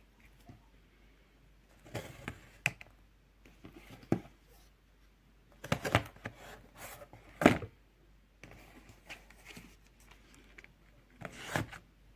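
Scattered soft clicks, knocks and rustling at uneven intervals, with no alarm melody playing.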